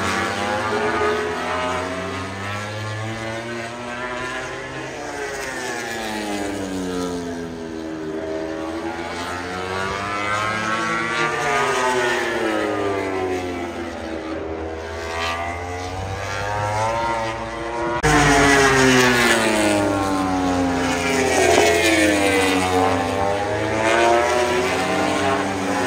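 MotoGP race motorcycles' four-cylinder engines revving up and down through the gears, several bikes overlapping, their pitch sweeping repeatedly as they accelerate and brake. The sound gets suddenly louder about two-thirds of the way in.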